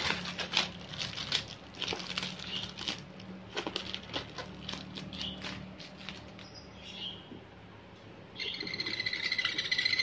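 Baby sun conures moving inside a wooden shipping box: scratching and shuffling with a few short high chirps, then a steady, longer high call from about eight and a half seconds in.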